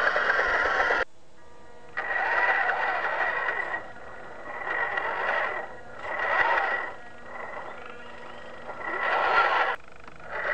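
Micro RC crawler's small electric motor and geartrain whining in bursts of a second or two as the throttle is worked, the pitch rising and falling, with pauses between. The sound cuts off suddenly about a second in.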